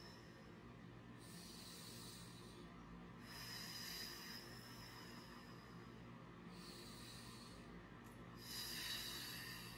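Faint, slow breathing of a woman holding a yoga pose: four soft breaths in and out, each one to three seconds long, over a low steady room hum.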